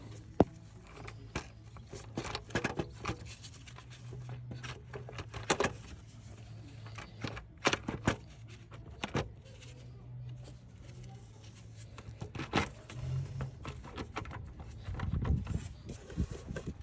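Irregular metallic clicks, clinks and knocks of hand tools and engine parts as a manifold is worked back into place on a diesel engine, over a low hum that comes and goes.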